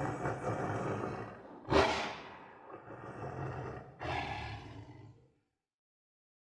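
Tiger roaring: the fading end of one roar, a fresh loud roar about two seconds in, a low rumble, and a shorter roar about four seconds in.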